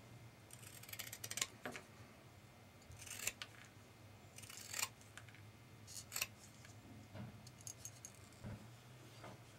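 Scissors cutting out a traced earring template from thin paper: a series of short, crisp snips about a second apart, over a faint low steady hum.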